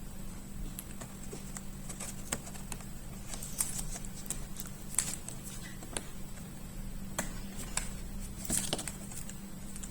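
Irregular light clicks and taps from hands handling the parts of an opened laptop, over a steady low hum.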